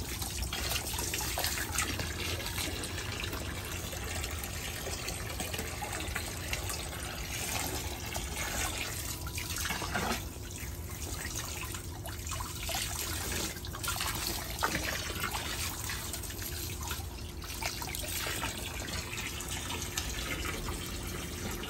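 A stream of water from a garden hose pouring steadily into a shallow inflatable paddling pool, with small splashes now and then.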